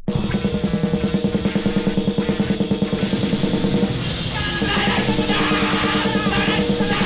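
Grindcore band recording: distorted guitars, bass and rapid drum-kit playing kick in abruptly after a short silence and run at a fast, dense beat.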